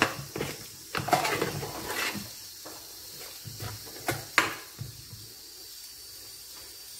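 A spoon stirring a thick, sticky batter of flour and melted jaggery in a stainless steel bowl, with irregular knocks and scrapes against the bowl's side. The clatter dies down a little under five seconds in.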